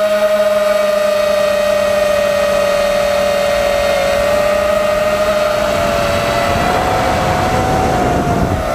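FPV quadcopter's brushless motors whining at a fairly steady pitch that drifts slightly and wavers near the end as the throttle changes. A rushing noise grows under the whine in the second half.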